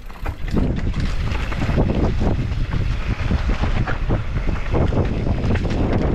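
Wind buffeting the microphone while a mountain bike descends a rough trail at speed, with a steady low rumble and constant rattling knocks from the bike and tyres.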